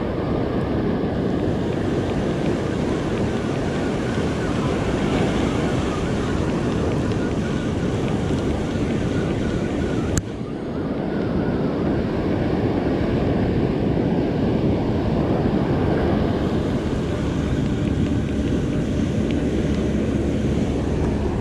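Ocean surf breaking and washing up the beach, with wind buffeting the microphone. A single sharp click comes about ten seconds in.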